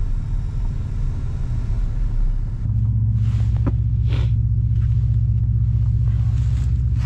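Toyota Tacoma pickup engine running with a low, steady rumble that gets louder about two and a half seconds in and holds there, with a few short hisses over it.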